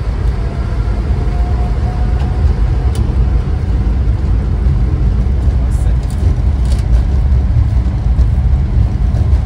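Steady, loud, deep rumble inside an airliner's cockpit during the takeoff roll: the jet engines at takeoff thrust and the wheels running over the runway.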